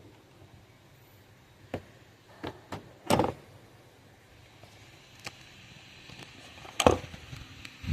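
Scattered clicks and knocks of tools and metal parts being handled during engine reassembly, with two louder knocks, one about three seconds in and one near the end.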